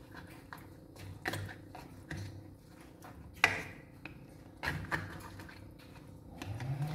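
Spatula clicking and scraping against a wok as fish pieces are stirred in a thin curry gravy: scattered light knocks, the loudest about three and a half seconds in.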